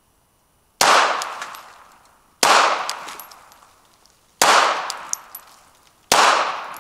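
Four single pistol shots from a Glock 42 in .380 ACP, fired one at a time about one and a half to two seconds apart, each sharp crack trailing off in a long echo.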